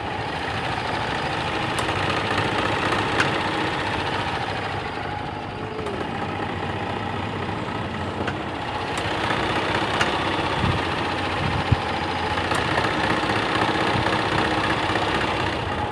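Engine of a gasoline Yamaha golf cart running steadily as the cart drives along a road, getting a little louder about nine seconds in, with a few short clicks and rattles.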